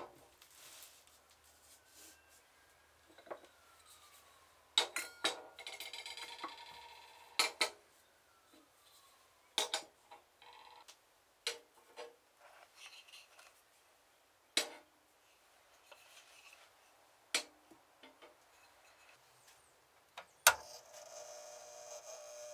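Brass-headed finishing tools with wooden handles being picked up and set down on a metal hot plate and against one another: scattered sharp clinks and knocks, about a dozen in all, some briefly ringing. Near the end a louder click is followed by a steady hum.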